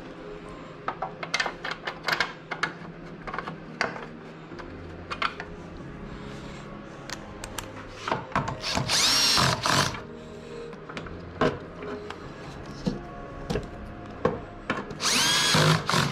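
Power drill run in two short bursts, its whine rising in pitch as the motor spins up, with scattered clicks and knocks of tools and parts being handled between them.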